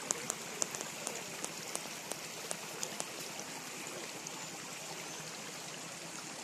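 Shallow stream running over rocks: a steady watery rush. Short high-pitched ticks come about three times a second at first, then thin out and stop about halfway through.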